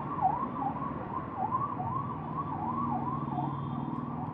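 An electronic siren sounding in a fast, even up-and-down warble, about two and a half sweeps a second, over a low background hum.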